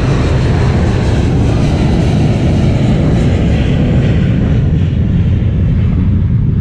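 Steady, loud wind rumble on the microphone of a camera mounted on a moving mountain bike.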